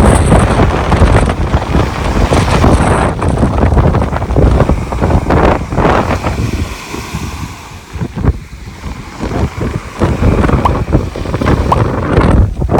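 Strong wind buffeting the phone's microphone over the rush of sea waves breaking on the shore; the gusts ease for a moment about two-thirds of the way through, then pick up again.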